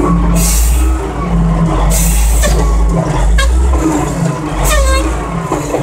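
Caterpillar 980F wheel loader's diesel engine working from the cab, its revs rising and falling several times, with short hissing bursts and a brief squeal about five seconds in.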